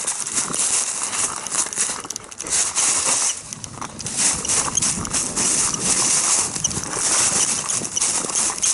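Footsteps crunching and rustling through dry forest leaves in quick, irregular steps.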